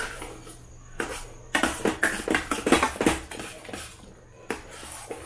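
Steel ladle scraping and knocking against a steel saucepan in quick, irregular strokes while stirring a thick, cooking rice-flour and milk dough. The strokes are busiest in the middle.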